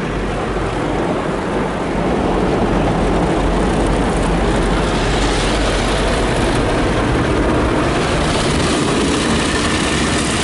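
Rotating brushes of an automatic car wash scrubbing over the car with water spraying, a steady dense noise heard from inside the car, getting a little louder about two seconds in.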